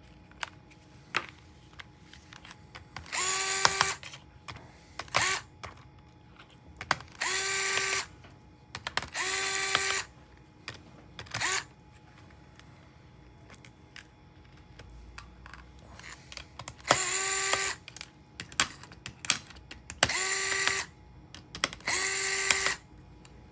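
Electric precision screwdriver backing out laptop screws: six short whirring runs, each spinning up and lasting under a second, plus two briefer spurts. Light clicks and taps of screws and tools fall between the runs.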